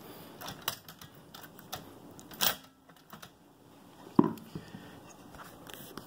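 Scattered light clicks and metallic knocks from parts of a Fox typewriter being handled and taken out, with a sharper knock about four seconds in.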